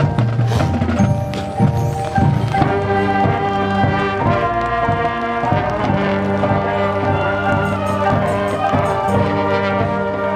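High school marching band playing its field show: percussion strikes over the first couple of seconds, then the brass section holds long, full chords over the drums and front ensemble.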